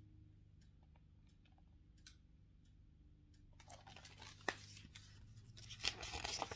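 Paper pages of a picture book rustling and flapping as the book is handled and lowered, with a few sharp paper clicks. The rustling starts a little past halfway and is loudest near the end, after a stretch of faint, evenly spaced ticking.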